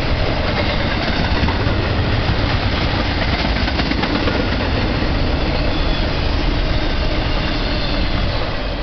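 BNSF intermodal freight train's flatcars, loaded with highway semi-trailers, rolling past at speed: a steady, loud rumble of steel wheels on rail. The noise begins to ease near the end as the last car goes by.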